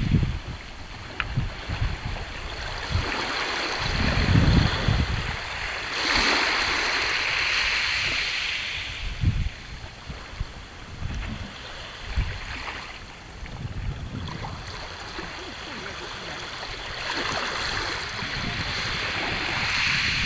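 Calm sea lapping at the shore, a soft wash that swells and fades twice, with gusts of wind rumbling on the microphone.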